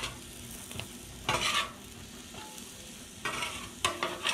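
Food sizzling on a Blackstone flat-top griddle, with a metal spatula scraping across the steel cooktop as tortillas are lifted and folded: one scrape about a second and a half in, then several quick scrapes near the end.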